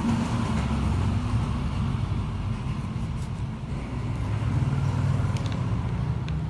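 Steady low rumble of a motor vehicle's engine running close by, wavering a little in strength, with a few faint clicks from a knife working at a durian's spiky husk.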